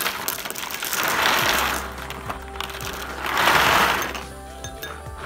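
Froot Loops cereal pouring from its cardboard box into a glass bowl: rattling swells of rings spilling out, with sharp clinks of pieces hitting the glass, over background music.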